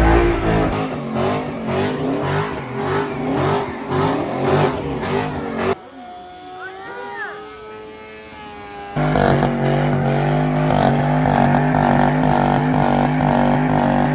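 Car engines revving, cut together from several clips with abrupt changes. A quieter stretch in the middle carries rising and falling squeals, and it gives way about nine seconds in to a loud, steady engine drone.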